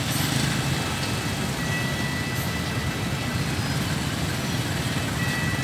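Freight train of container flatcars rolling slowly past, a steady low rumble of wheels on the rails. A thin high whine comes and goes over it.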